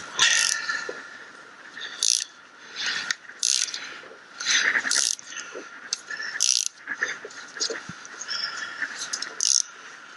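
Socket ratchet wrench clicking in repeated short bursts as it is swung back and forth on a bolt of a Jaguar XJ rear differential and hub assembly.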